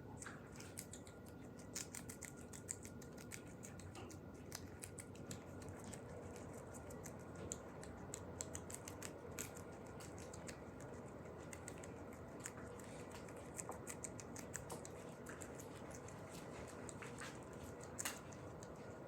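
Many light, irregular clicks and taps over a faint steady hum.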